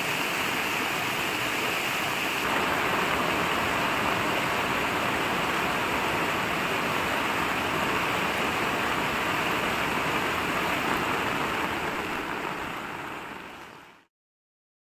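Muddy floodwater of a swollen hill river rushing past, a steady loud rush of water. It fades out near the end.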